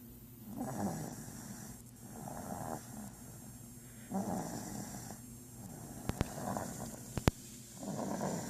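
Slow, regular snoring, one snore about every one and a half to two seconds. Two or three sharp clicks come in the second half.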